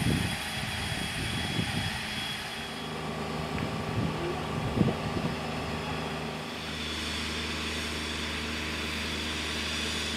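Victorian Railways J class steam locomotive moving off slowly, hissing steam from its cylinder drain cocks over a low, uneven rumble. A little past halfway the rumble turns steady.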